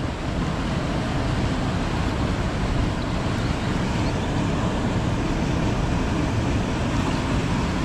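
Steady, even rush of a waterfall and fast creek water.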